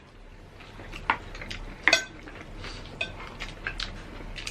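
Cutlery clinking against plates during a meal: a handful of separate clinks, one about two seconds in ringing briefly.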